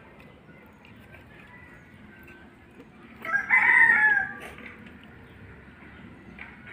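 A rooster crowing once, about a second long, a little past halfway through.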